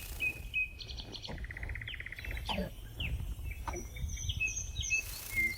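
Small songbirds chirping and calling, with short sharp chirps, a rapid buzzy trill about a second in and a few high thin notes near the end.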